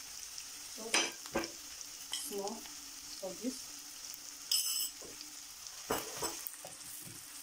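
Chopped onion frying in hot oil in a non-stick pan, a steady sizzle, while a wooden spoon stirs in blended scotch bonnet and bell pepper. The spoon scrapes across the pan and knocks against it and the bowl a few times.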